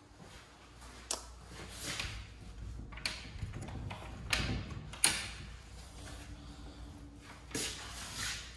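A door being handled: irregular sharp clicks and knocks, the loudest about five seconds in, with a few short rushing sounds in between.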